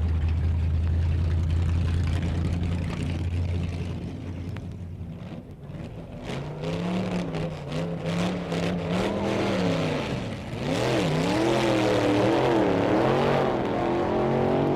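Drag-racing engine: a steady low drone for about four seconds, a few sharp pops, then the engine is revved up and down again and again in quick throttle blips.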